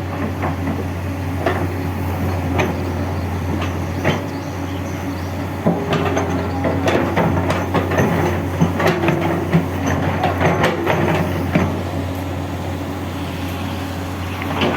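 Excavator's diesel engine running steadily, with a run of sharp knocks and clanks from about six to twelve seconds in as the machine works.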